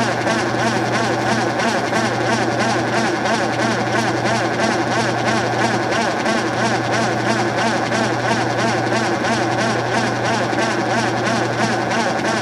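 Vintage KitchenAid direct-drive top-load washer spinning its basket, running steadily with a low motor hum and whir.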